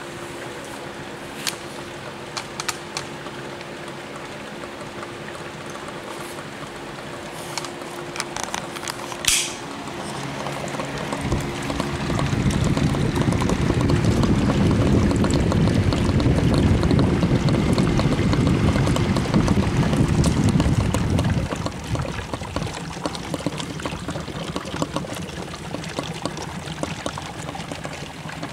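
Electrolysis cells of a 354-plate HHO generator at full output, gas bubbling and fizzing steadily through water in a clear tank, over a faint steady hum. The bubbling swells to a loud rush about 11 seconds in and drops back about 21 seconds in.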